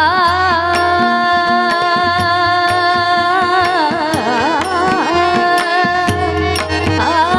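Marathi devotional bhajan: a woman's voice holds a long sung note that wavers and bends in the middle, over drum strokes and evenly spaced clicks of small hand cymbals (taal).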